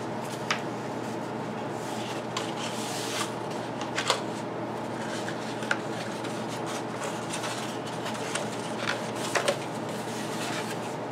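Rolled paper posters being unrolled and handled: rustling and rubbing of stiff paper with a few sharp crackles, over the steady hum of an electric pedestal fan.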